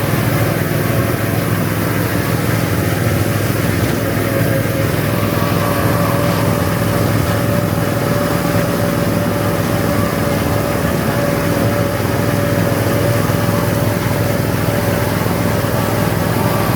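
Small petrol engine of a vintage-style ride car running steadily at low speed, very loud, with a steady whine over its drone.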